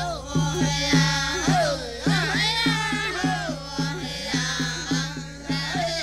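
Background music with a quick, steady drumbeat under a melody that slides up and down in pitch.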